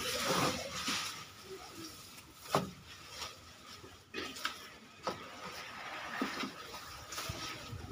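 A few scattered knocks and faint rustling from a cow shifting in its wooden stall, with a faint steady high tone underneath.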